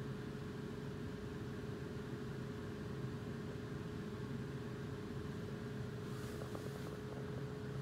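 Lenovo G550 laptop's freshly cleaned cooling fan running steadily: an even hum with a steady mid-pitched whine. A few faint clicks near the end.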